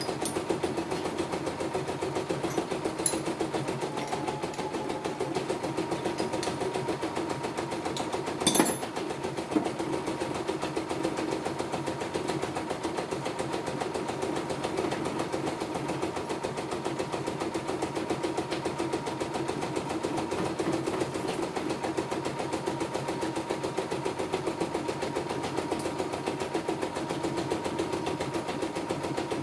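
CNY E960 computerized embroidery machine stitching a test design at a steady, even pace, with a sharp click about eight seconds in. It is running smoothly on a newly replaced bobbin case, after a worn one had made it rattle.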